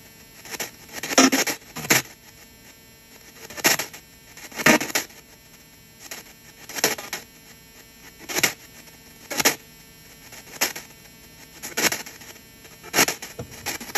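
SB7-type ghost box (P-SB7T spirit box) sweeping the FM band, played through a DAS-ANC noise-gate filter and speaker: irregular short bursts of radio static and broadcast fragments, roughly one to two a second, with quiet gaps between where the noise gate cuts out the hiss.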